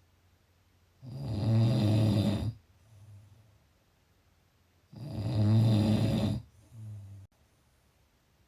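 Snoring: two long, loud snores about four seconds apart, each followed by a short, softer breath-snore.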